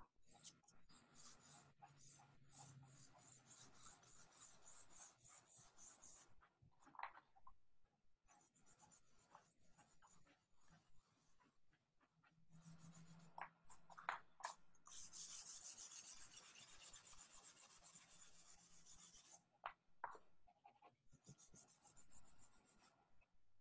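Pencil graphite scratching across paper: quick repeated strokes in the first few seconds, then, about halfway through, several seconds of fast back-and-forth scribbled shading, and a few more strokes near the end.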